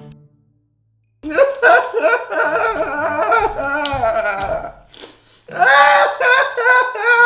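A boy wailing loudly in two long bouts of put-on crying, his voice wavering up and down, starting about a second in with a short break near the middle.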